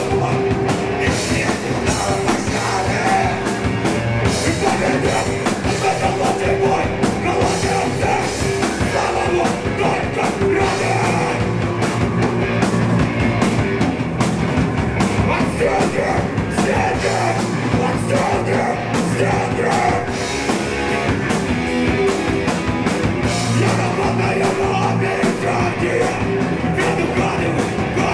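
Hardcore punk band playing live: distorted electric guitars, bass guitar and a drum kit with crashing cymbals, under a vocalist shouting into the microphone, loud and without a break.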